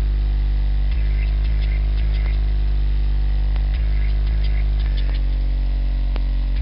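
Sub-bass test tones from a woofer excursion test track played through a subwoofer: a loud, deep, steady hum that steps to a new pitch every second or so.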